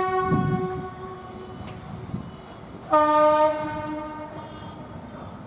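A loud horn sounding in two long blasts: the first, already going, fades out about a second and a half in, and a second, lower-pitched blast starts about three seconds in and fades away over a second or so.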